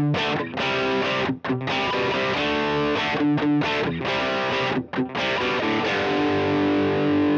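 Fender Stratocaster-style electric guitar played through its bridge pickup: a rock rhythm of chords with short stops between them, ending on a held chord.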